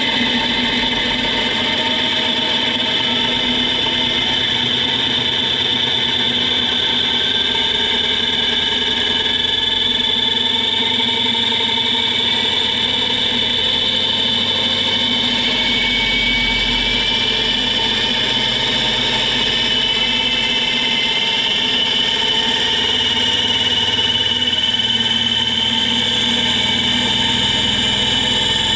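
Unlubricated 3D-printed ASA helical gear train running up in speed, from about 6,000 to 20,000 rpm: a steady mechanical whine made of several tones, some of them slowly rising in pitch, over a rushing noise.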